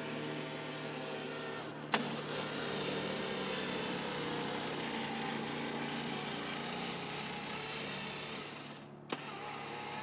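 Home-built electric walk-behind tractor's electric motor running steadily with a whine as the tractor pushes dirt with its blade. There is a sharp click about two seconds in, and another near the end just after the motor's sound briefly dips.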